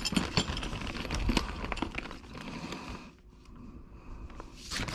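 Loose metal bolts clinking and rattling as a hand sifts through a container full of them, busy over the first couple of seconds, then fainter scattered clicks, with a brief louder sound near the end.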